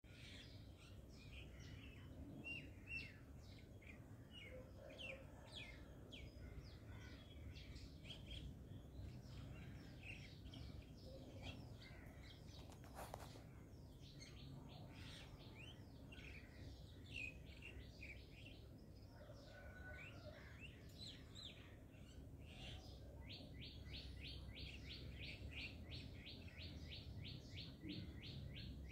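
Faint chirping of small birds, many short calls scattered throughout. Near the end, a quick, even run of repeated notes, about four or five a second.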